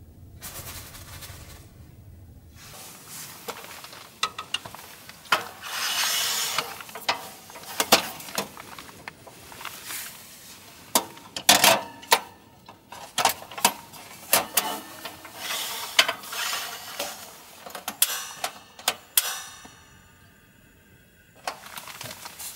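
A portable cassette-gas heater being set up and lit: a run of plastic and metal clicks and knocks as it is handled, its gas canister fitted and its ignition knob turned, with some rustling of nylon clothing. Near the end it settles into a faint steady hiss as the burner runs.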